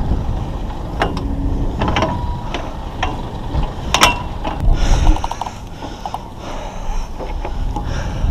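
Rigging and gear noise while going up a sailboat's mast: scattered clicks, knocks and brief creaks from the halyard, blocks and fittings, with one sharp knock about four seconds in.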